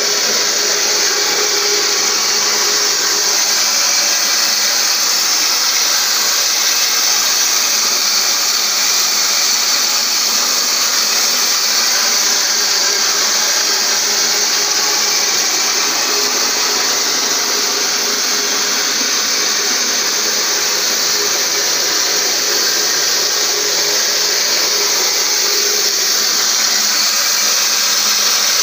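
Motor-driven grain mill running steadily under load, with processed grain streaming from its outlet into a plastic bucket.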